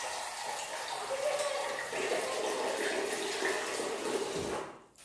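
Steady rushing hiss that cuts off suddenly near the end.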